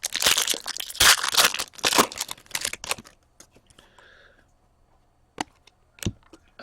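Trading card pack wrapper being torn open and crinkled for about three seconds, then two sharp clicks.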